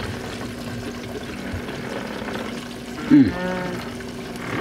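Steady sloshing of river water against the yacht's hull. About three seconds in comes a short, loud pitched sound whose pitch dips and then rises.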